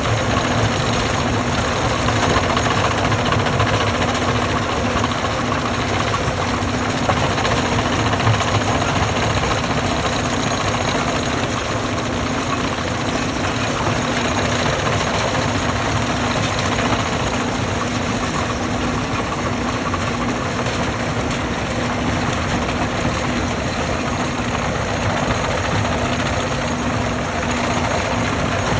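Stone crushing machine running: a loud, steady mechanical rumble with a constant hum.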